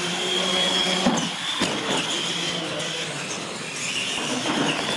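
Radio-controlled monster trucks racing, their electric motors and gearboxes whining steadily, with a few sharp knocks in the first two seconds.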